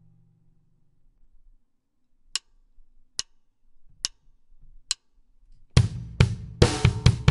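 Four evenly spaced sharp clicks, drumsticks tapped together as a count-in, then a drum-kit beat starts about two-thirds of the way in: rapid bass drum strokes on a double pedal under snare and cymbal hits.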